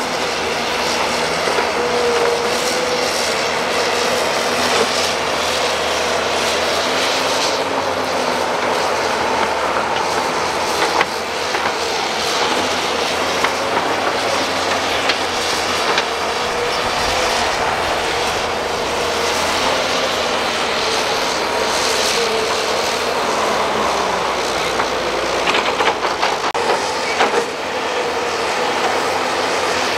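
Zoomlion ZE210E crawler excavator's diesel engine running under load while it digs and swings wet mud, with scattered metallic clanks and knocks from the bucket and boom. Near the end the sound cuts to another excavator working.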